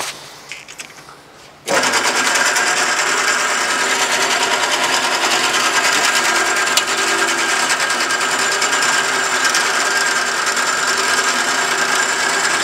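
A few light clicks, then a horizontal metal-cutting band saw switches on abruptly about two seconds in and runs steadily and loudly, its motor driving the coolant pump along with it.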